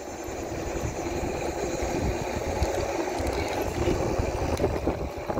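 iSinwheel S9 Max electric scooter riding along, a steady rattling and humming of the moving scooter under a gusty low rumble.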